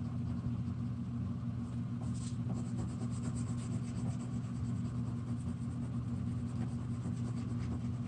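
Wax crayon scribbling on paper in quick back-and-forth strokes, starting about two seconds in, over a steady low hum.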